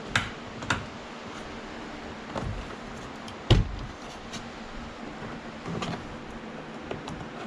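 Plastic door-card rivets and clips being popped out with a trim tool: a handful of sharp clicks and knocks at uneven intervals, the loudest about three and a half seconds in.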